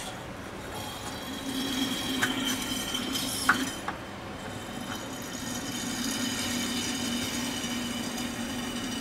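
Fluid extractor sucking old power steering fluid out of the reservoir through its hose: a steady hum with a thin whistle and hiss, getting a little louder after the middle. A few sharp clinks about two and three and a half seconds in, the second the loudest.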